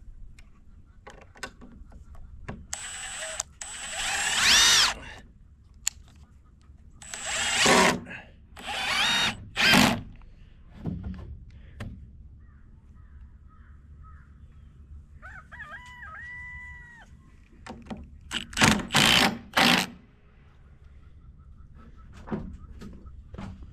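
Cordless drill driving screws into a timber fascia board in several bursts, the motor pitch rising and falling as each screw goes in. A rooster crows once about two-thirds of the way through.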